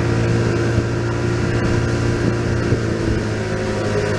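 An engine running at a steady speed, giving an even, unchanging drone.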